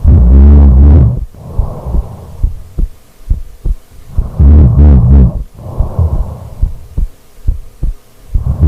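A person snoring: two loud, low snores about four seconds apart, each followed by a softer, breathy exhale, with faint clicks in the pauses between breaths.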